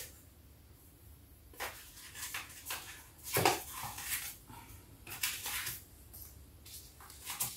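A small white cardboard box being handled and opened: flaps folding back and inner boxes sliding and knocking, in scattered rustles and taps. The loudest knock comes about three and a half seconds in.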